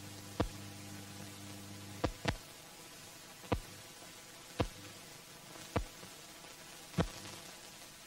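Worn optical film soundtrack noise: a steady hiss with a low hum that stops about two seconds in, and sharp pops and clicks roughly once a second.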